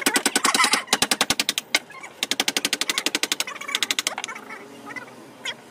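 Rapid light mallet blows on a wood-carving chisel cutting into teak, about ten taps a second in several short runs with brief pauses between them.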